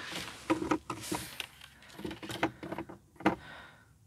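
Hands handling the inside of a car's glove box: a series of irregular light plastic clicks and knocks, with a short rustle about a second in.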